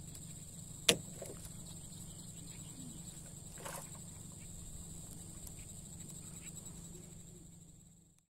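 Steady high-pitched insect chirring over a low hum, with one sharp knock about a second in and a softer rustle near four seconds. The sound fades out near the end.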